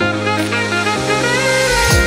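Instrumental background music: a new passage begins with a wavering lead melody over sustained bass notes.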